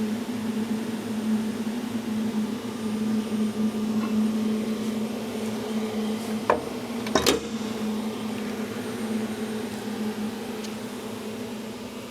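Hydraulic power unit of a Sunrise 110-ton ironworker humming steadily. Two sharp impacts come about six and a half and seven seconds in, the second heavier, as the punch strokes through the material.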